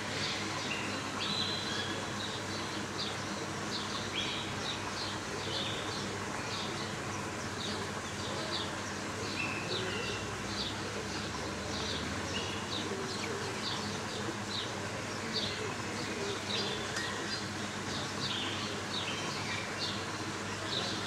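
Animal chirping: many short, high chirps repeating irregularly, with a few brief held notes among them, over a steady low hum.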